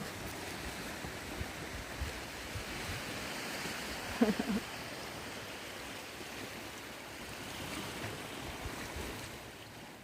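Sea surf washing steadily onto the beach. About four seconds in, a brief short pitched sound cuts through.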